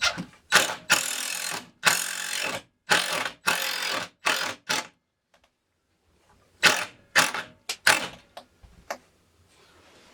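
Screws being driven into wood in a run of short bursts, with a pause of a second or so partway through before more bursts.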